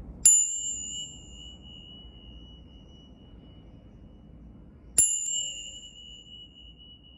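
A small high-pitched metal chime struck twice, about five seconds apart. Each strike rings one clear tone that fades slowly over several seconds, and the second strike has a quick extra tap just after it.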